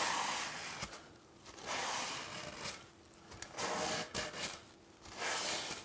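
Dry paper towel rubbed across the ridged grill plate of a George Foreman indoor/outdoor grill, wiping off cooked-on grease and bits in four strokes with short pauses between, plus a few light clicks midway.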